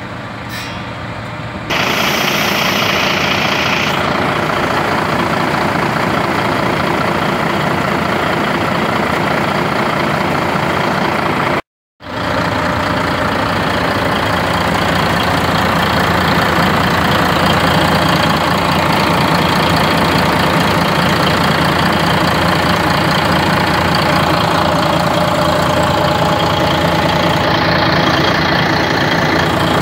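Volvo FH16 550's 16-litre straight-six diesel idling steadily, heard close to the engine. It gets suddenly louder about two seconds in, and the sound cuts out for a moment near the middle.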